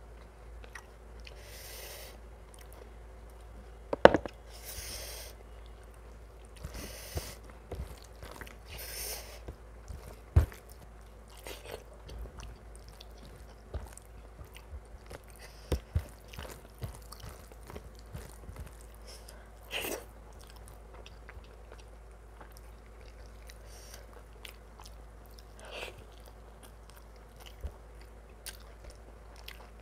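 Close-miked chewing and biting of mutton curry with rice: wet mouth clicks and smacks, with a few sharper crunches or knocks, and several short hisses in the first ten seconds.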